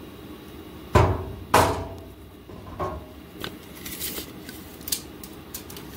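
Two sharp metal knocks with a short ringing after each, about half a second apart, then a few lighter knocks and the clicking rattle of a tape measure being pulled out.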